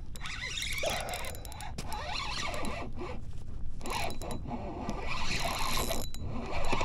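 Fishing reel being cranked to bring in a hooked bass, a run of quick, irregular mechanical clicks and scraping.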